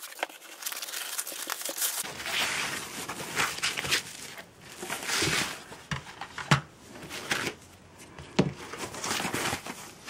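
Plastic packaging bag rustling and crinkling as an LED video light is unwrapped and handled, with a few short clicks and knocks from the light's hard plastic housing, the loudest about two thirds of the way through.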